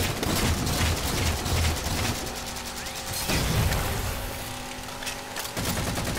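Shooter video game audio: rapid gunfire with automatic bursts, over steady game music.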